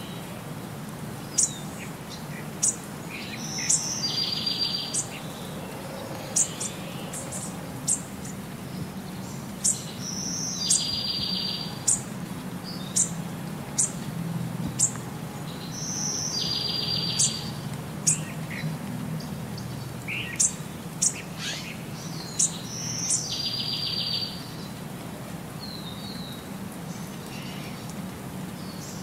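Birds chirping and calling, with short sharp high chirps and brief buzzy trills over a low steady hum. The same sequence of calls repeats about every six seconds, as in a looped birdsong recording.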